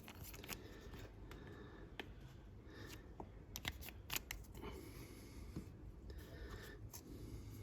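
Faint, scattered light clicks and small scratchy taps over a quiet room hiss: handling noises from a fine paintbrush and a small plastic model during brush-painting.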